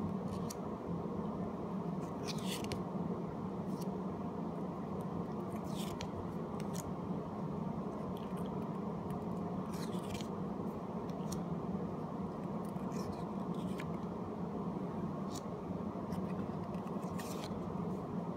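Pokemon trading cards sliding against one another as each card is slipped from the front of the stack to the back, a short papery swish every two to four seconds, about eight in all, over a steady low hum.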